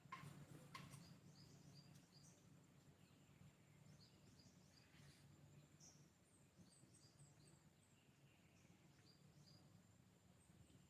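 Faint birds chirping: short high calls in quick little runs, over a low steady hum and a thin high whine. Two sharp clicks come near the start.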